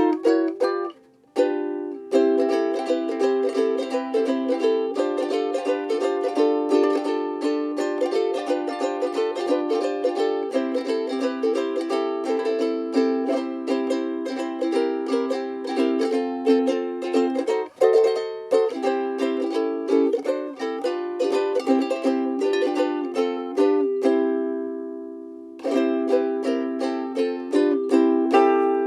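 LUNA MV-3Sf soprano ukulele with a solid Fiji mahogany body, played as a solo: chords and melody notes plucked in a steady flowing rhythm, with a short pause about a second in and a chord left to ring a few seconds before the end.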